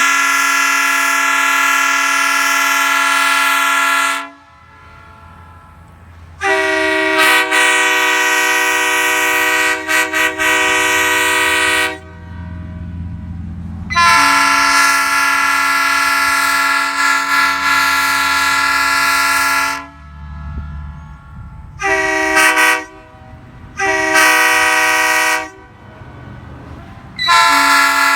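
Air-blown locomotive horns, a 1980s Nathan Airchime K3L and a Nathan Newcast P3, sounding in turn as multi-note chords. There are three long blasts of several seconds each, the middle one pitched slightly higher than the first and third, followed by three short blasts near the end.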